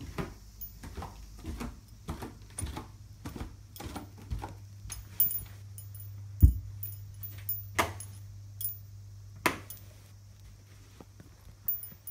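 Footsteps thudding on a wooden staircase: an irregular run of knocks, about two or three a second, with light clicks and jingling, the heaviest thud a little past halfway.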